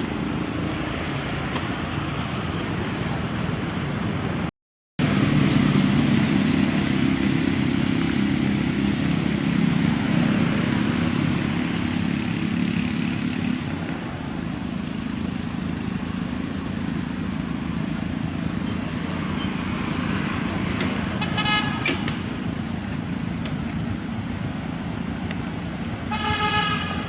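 Steady road-traffic noise under a constant high-pitched hiss, with a vehicle horn tooting briefly about three-quarters of the way through and again near the end. The sound cuts out completely for a moment early on.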